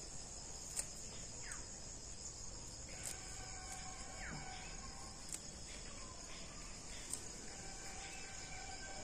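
Steady high-pitched chorus of crickets and other insects, with a few faint clicks.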